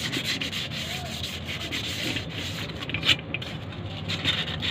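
Abrasive paper rubbed by hand over the armature of an Eicher truck starter motor: a steady run of rasping sanding strokes that clean the carbon off and polish the metal, with one sharper scrape about three seconds in.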